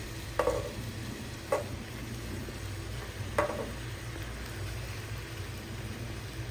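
Raw salmon pieces being dropped into a nonstick pot of sliced vegetables, landing with three soft knocks about a second or two apart, over a steady low hum.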